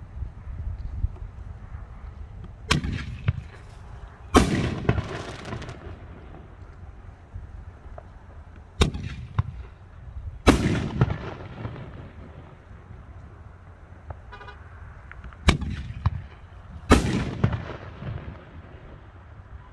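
Raccoon Fireworks Minecraft artillery shells fired from a mortar tube, three in a row. Each is a sharp launch thump followed about a second and a half later by a louder aerial break that trails off.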